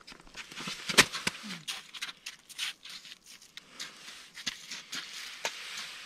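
Irregular crunching and scraping of snow and slushy ice as a tip-up is handled at an ice-fishing hole, with a sharp knock about a second in.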